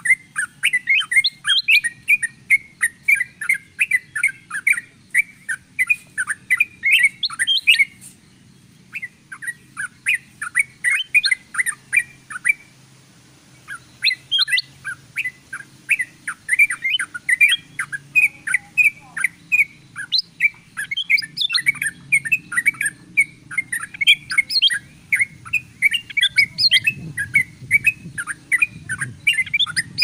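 Bird-lure recording of yellow-vented bulbul calls combined with ruby-throated bulbul (kutilang emas) song: busy, rapid chattering chirps in long runs, with two short pauses around the middle.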